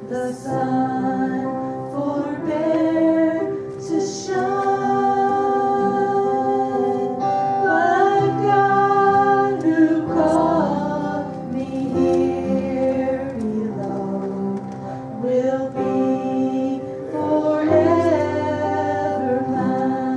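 Church congregation or choir singing a gospel worship song, voices holding long notes over low sustained accompaniment.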